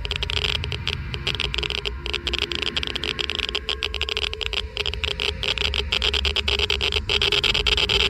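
Geiger-Müller counter clicking rapidly and irregularly, each click an ionizing particle counted, over a low rumble.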